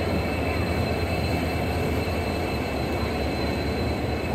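WDP4D diesel locomotive, with its EMD two-stroke diesel engine, passing close alongside and drawing its coaches into the platform. Engine and wheels make a steady deep rumble.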